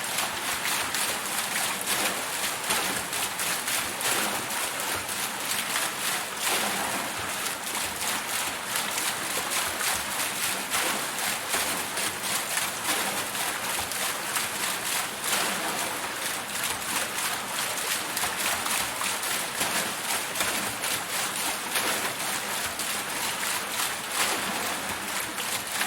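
Water wheel turning in flowing water: steady splashing and rushing water.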